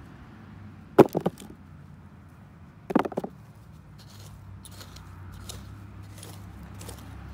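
Two short bursts of hard knocks about two seconds apart, each a quick run of three or four strikes, from hands-on potato harvesting in a garden bed, followed by faint rustling of soil and plants.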